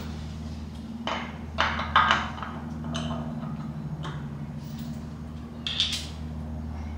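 Scattered metal clinks and knocks as an oil pump is handled and slid into place on the front of an LS V8 block's crankshaft, the sharpest about two seconds in, over a steady low hum.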